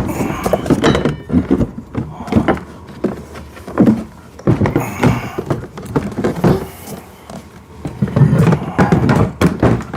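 Irregular knocks, thuds and clatter of plastic ride-on toy car parts being handled and fitted together, with some rustling between them.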